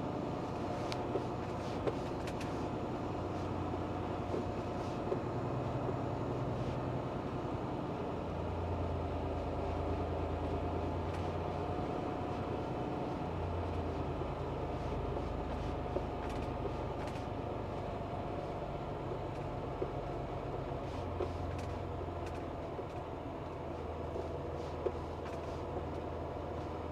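Truck's diesel engine running steadily as the truck drives slowly, a low hum whose note shifts slightly a few times.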